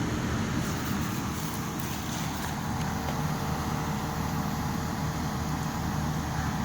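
The 18,000 BTU Midea inverter ductless air conditioner running steadily on its commissioning test: a constant low rumbling hum with faint steady tones over it.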